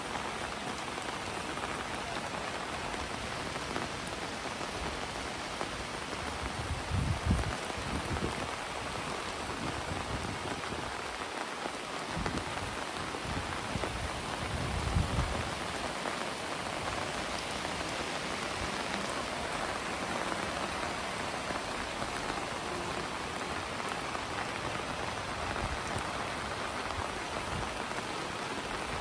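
Heavy rain falling steadily on paved ground and floodwater, an even hiss. Two brief low rumbles rise over it, about a quarter of the way in and again around the middle.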